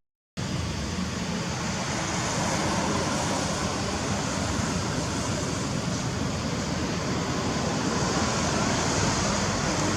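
Steady rushing noise with no clear pitch, after a brief cut to silence right at the start.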